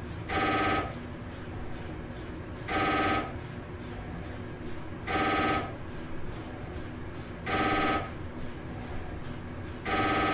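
Phone ringtone: a short ring of several tones at once, repeating about every two and a half seconds, five times.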